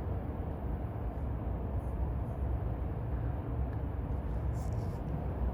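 Steady low rumble of background noise, with a couple of faint ticks.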